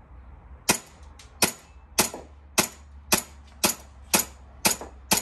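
Airsoft pistol firing nine shots in steady succession, about two a second. Each shot is a sharp crack with a metallic click as the slide snaps back.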